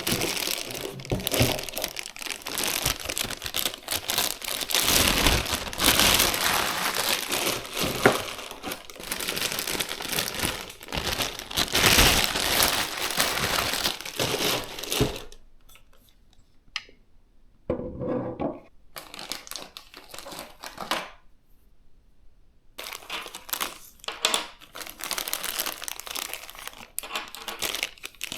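Packaging being handled: crinkling and rustling with some tearing, loud and dense at first. It falls quiet about halfway through, apart from one brief rustle, then starts again near the end.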